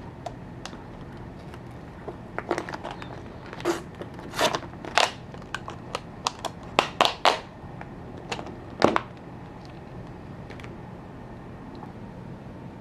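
Irregular sharp clicks and knocks, like objects being handled, bunched in the middle and over a steady low background hum.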